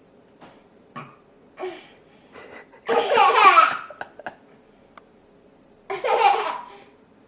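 A child's voice: a few small sounds, then two loud vocal bursts about three seconds apart, each falling in pitch, the first about a second long and the louder.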